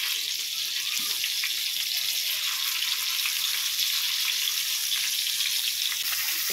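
Chicken pieces shallow-frying in hot oil in a nonstick pan, sizzling steadily with fine crackles.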